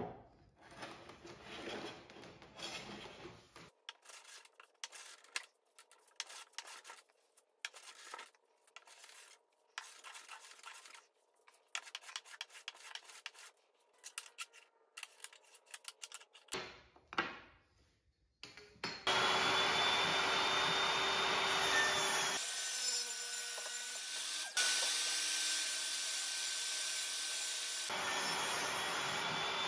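A hand bench plane shaving a red oak panel in a series of short, rasping strokes. About 19 seconds in, a table saw takes over, running loud and steady as it rips a red oak board, its tone shifting for a few seconds while the blade is in the cut.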